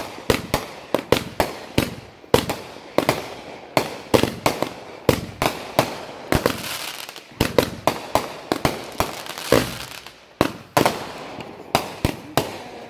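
Aerial fireworks bursting overhead in quick succession: a string of sharp bangs, two or three a second, each with a brief echoing tail, and a denser stretch of crackling noise about six seconds in.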